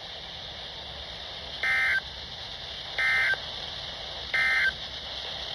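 Three short, identical bursts of warbling digital data tones, each about a third of a second long and spaced a little over a second apart, over a faint steady hiss. These are the EAS end-of-message signal: the SAME data code sent three times to close an Emergency Alert System warning.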